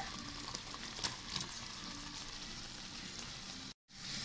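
Hot brown-sugar caramel syrup sizzling in a nonstick pot as cooked rice is tipped into it, with a few light clicks. The sound breaks off briefly near the end, then a wooden spoon starts stirring the rice through the sizzling syrup.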